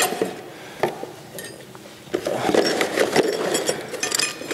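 Metal rotisserie parts (spit, forks and brackets) clinking as they are lifted out of a cardboard box and set down on a concrete floor. A few separate clicks come first, then a busier run of clinks and rustling from about two seconds in.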